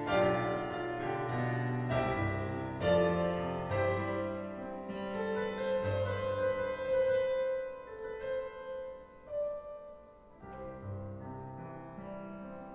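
Piano playing slow chords, each struck chord ringing out and decaying, growing quieter over the last few seconds.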